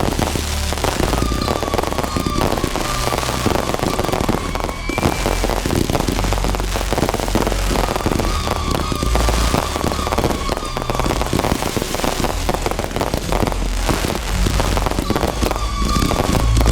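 Fireworks display going off continuously: dense crackling with deep booms underneath, and a faint falling whistle a few times.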